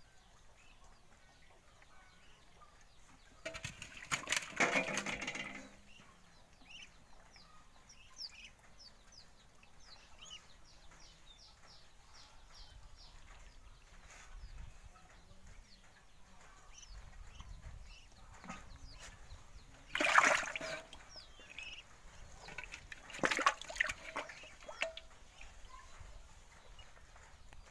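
Live fish splashing in shallow water in a metal pot, in three brief bursts: one a few seconds in, then two close together later on. Faint high chirps sit between the bursts.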